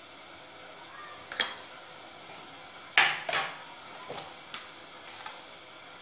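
Metal spoon clinking and tapping against dishes while spices are spooned over the fish: a handful of short clicks, the loudest pair about three seconds in.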